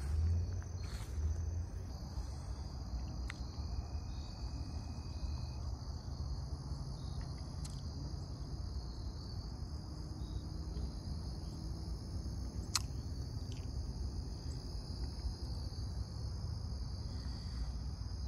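Evening chorus of crickets trilling steadily, over a low rumble.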